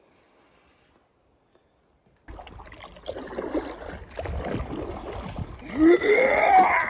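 Strong wind buffeting the microphone over splashing lake water on a paddleboard crossing, starting suddenly about two seconds in after near silence. Near the end a brief rising whine is the loudest sound.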